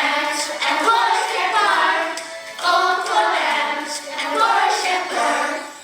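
Children singing a song together in chorus, in several sung phrases.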